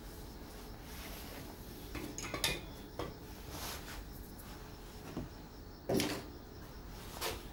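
A string of short clinks and knocks from small hard objects, tools or parts, being handled and set down on a workbench, the sharpest about two and a half and six seconds in.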